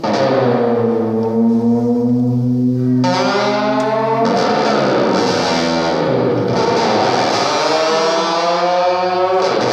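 Solo electric guitar played loud through distortion and effects pedals: sustained distorted notes, struck anew about three seconds in, with the pitch sliding down midway and rising again near the end.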